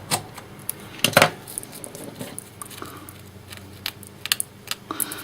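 Stripboard track cutter, a drill bit in a handle, being worked into the copper tracks on the back of the board: irregular small clicks and clatters, the sharpest about a second in.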